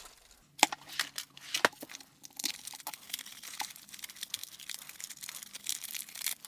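Bubble-wrap packaging crinkling and rustling as it is handled and opened, with many irregular sharp crackles.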